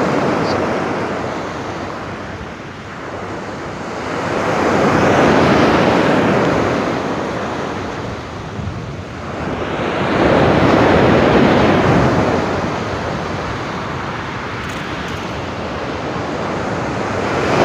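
Sea waves breaking and washing up the beach, a rushing surf that swells and fades in slow surges, twice rising to a peak.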